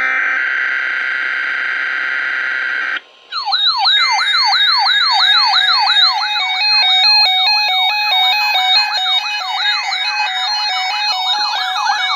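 Electronic emergency-alert tones from a weather-radio test broadcast: a steady buzzing tone lasts about three seconds and cuts off. After a brief gap, a fast, repeating siren-like wail starts, falling in pitch about twice a second, with stepped beeping tones over it.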